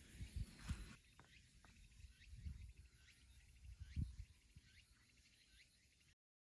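Faint outdoor ambience: a low rumble of wind on the microphone with scattered faint high chirps. The sound cuts out completely about six seconds in.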